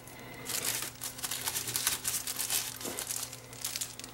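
Crinkly rustling handling noise in a few short spells, over a steady low electrical hum.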